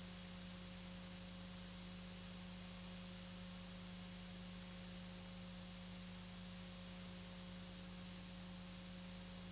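Faint steady electrical hum with a constant hiss, unchanging throughout, and no other sound.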